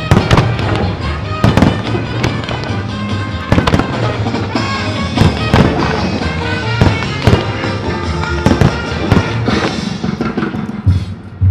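Fireworks display: aerial shells and comets bursting as a rapid, irregular string of bangs over the show's accompanying music.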